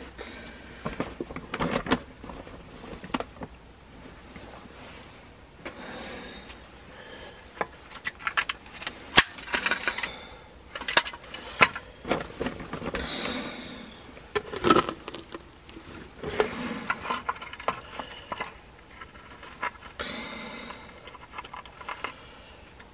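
Gloved hands handling wooden snap traps on a gravel crawlspace floor: irregular scraping, rattling and small metallic clicks and clinks from the traps' wire bars and springs, with stones shifting underfoot.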